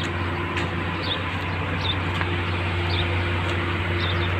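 A small bird chirping, short high calls repeated about once a second, over a steady low rumble of outdoor background noise.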